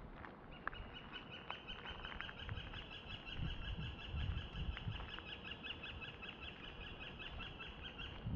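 A single long, rapid animal trill held at one steady pitch for nearly eight seconds, stopping abruptly near the end. Soft footsteps on the paved path thud beneath it in the middle.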